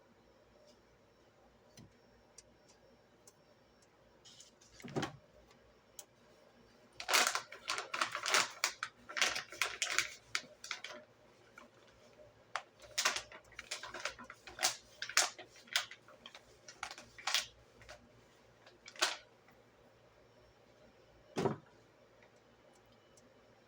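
A series of irregular clicks and light knocks, thickest in a cluster about a third of the way in, then spaced out, with a duller thump near the start of the run and another near the end.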